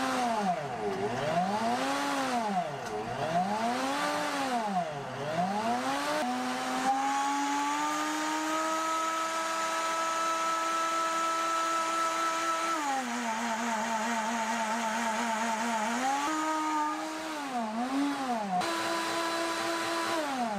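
Kuvings SV500 high-powered vacuum blender's 1700-watt motor blending fruit and ice. Its speed swings up and down about every two seconds at first, then holds a steady high speed, dips and wavers for a few seconds, rises again and starts to wind down at the very end. It reads about 90 dB on a sound level meter.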